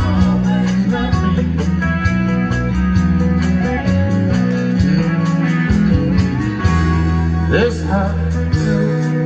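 Live country band playing through a PA: drums keeping a steady beat under electric bass, acoustic guitar and electric guitar.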